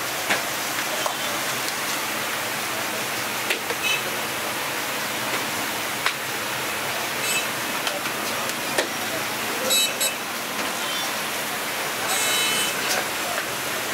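Steady noisy hiss of a busy street kitchen, with a few sharp slaps of dough balls being patted between the hands. Short high-pitched tones sound twice, around the middle and near the end.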